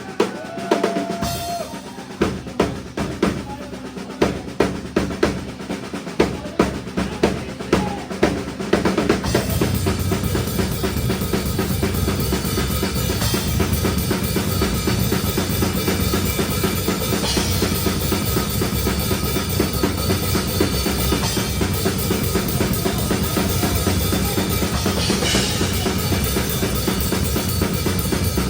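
Metal band playing live, heard from close to the drum kit: for the first nine seconds or so, separate heavy drum hits about twice a second. Then the whole band comes in at once with fast, continuous drumming under a dense wall of band sound.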